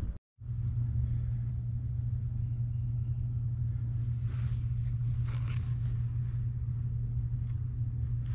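A steady low motor-like rumble with a faint steady high whine above it, and a couple of brief rustling or scraping noises about halfway through.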